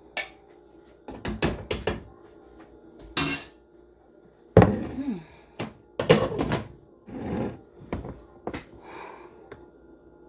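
Kitchenware clattering as soup is dished up: a string of irregular clinks and knocks of a ladle or spoon against a pot and bowl, some ringing briefly.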